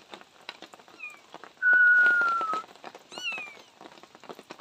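Persian kitten meowing with thin, high calls that fall in pitch: a short one about a second in and a clearer one near the end. Near the middle a loud, clear whistle-like tone holds for about a second, sliding slightly down.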